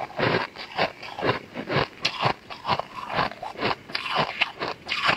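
Teeth biting and chewing into a frosty block of purple-coloured ice: a quick, steady run of sharp crunches, several a second.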